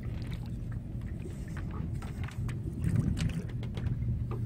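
A small fishing boat's outboard motor idles with a steady low hum, with faint small knocks and water sounds from the line being handled at the side.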